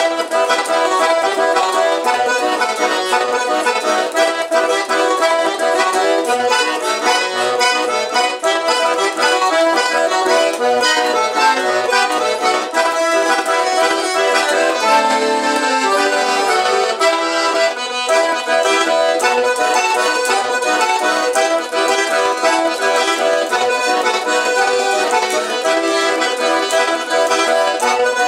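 Two button accordions playing an instrumental chamamé together, continuous and lively with many held notes.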